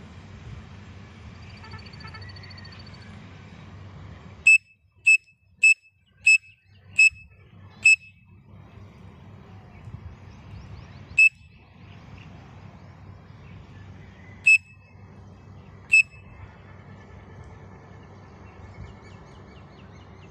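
Shrill whistle notes blown across a pen cap, imitating the call of a grey francolin (teetar). First comes a run of six quick, sharp notes about two-thirds of a second apart, then three more notes spaced out singly.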